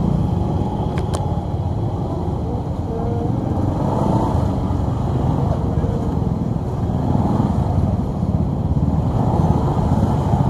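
Motorbike and scooter engines running at low speed close by, a steady low rumble as they creep through a crowd, with crowd voices mixed in.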